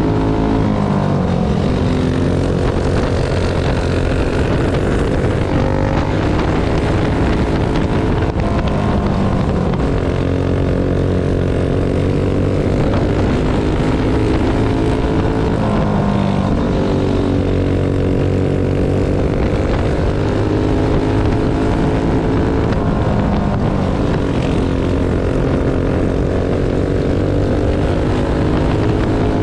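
Single-cylinder four-stroke dirt-track kart engine at racing speed, heard onboard. The engine note drops as the throttle lifts for each turn and climbs again down each straight, repeating every several seconds.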